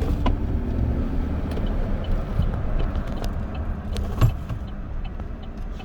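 A car driving, heard from inside the cabin: a steady low engine and road rumble, with a single sharp knock about four seconds in.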